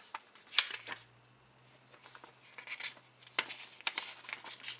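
Paper user manual being handled and opened, its pages leafed through: a sharp paper rustle about half a second in, then a run of short crisp crinkles in the second half.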